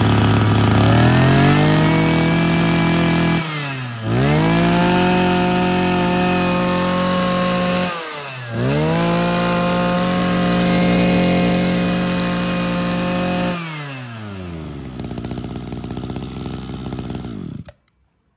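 Robin NB255 25cc two-stroke brush cutter engine running. It idles and is revved up three times, held high for a few seconds each time, with short drops back between them. It then falls to idle and cuts off near the end. The seller calls the engine still very strong.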